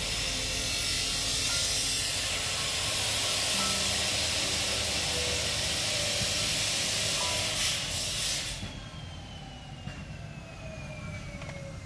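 Background music with a loud, steady hiss over it; the hiss cuts off suddenly about eight and a half seconds in, leaving the music and a falling tone.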